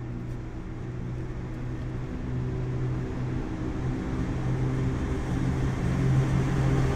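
EP09 electric locomotive hauling a passenger train, picking up speed after a stop at a signal and approaching: a steady low hum with overtones over rolling noise, growing steadily louder.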